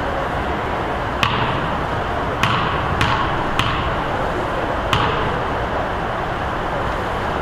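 Basketball bouncing on a gym floor: five sharp, echoing bounces at uneven intervals, over a steady background noise.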